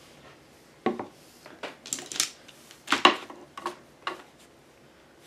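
Art supplies being handled and set down on a craft table: a plastic water cup, paint brushes and a small paint bottle knocking and clattering. About six separate clacks with a short scrape among them, the loudest about three seconds in.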